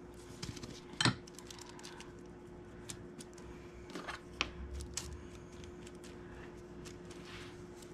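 Scattered light clicks and taps of a metal spoon and fork on a laminate countertop as a cherry hand pie is folded and its edge crimped with the fork. The sharpest click comes about a second in, all over a steady faint hum.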